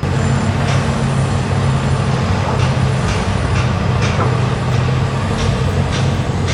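Engine of heavy machinery running steadily at a low hum, with sharp clicks or knocks about every second.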